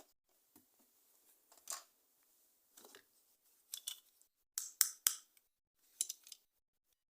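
Handling of a toy and its plastic packaging during unboxing: a scattered run of short, sharp clicks and snips, loudest in a quick cluster about two-thirds of the way through.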